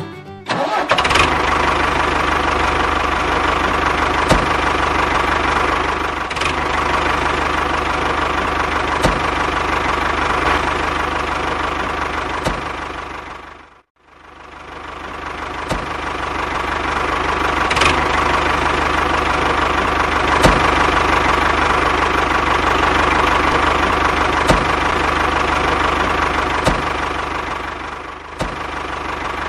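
Small motor of a miniature model tractor running steadily with a whir and faint clicks now and then. It fades out about halfway and fades back in.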